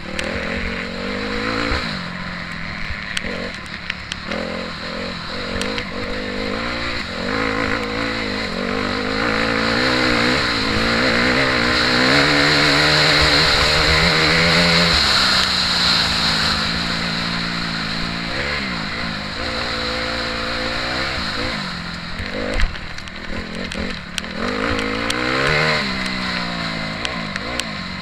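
Motocross bike engine heard from on the bike during a race, revving up and dropping off over and over as the rider works the throttle and gears. A long, loud pull about halfway through, and a single sharp knock about two-thirds of the way in.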